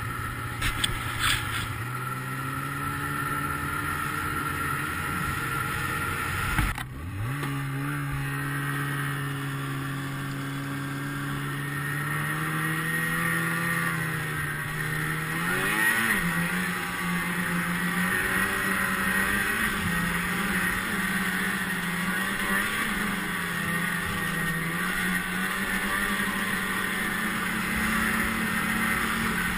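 Snowmobile engine running under way, heard from the rider's seat: a steady drone that steps up in pitch a few times, with an abrupt break about seven seconds in. A few knocks near the start.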